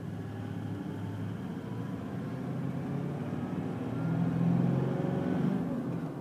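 Car engine and traffic noise heard from inside a car's cabin while it creeps along in traffic: a steady low hum that swells a little about four seconds in.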